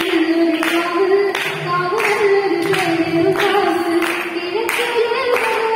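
A girl singing solo into a hand-held microphone: a slow unaccompanied melody with long held notes that glide between pitches.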